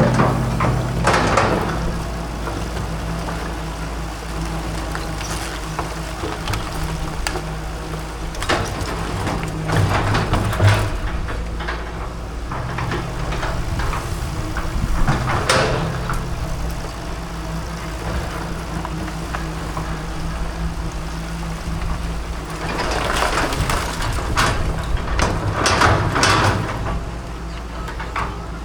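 Excavator's diesel engine running steadily, with several louder stretches of scraping and crunching as the machine works, about a second in, around ten seconds in, mid-way and again near the end.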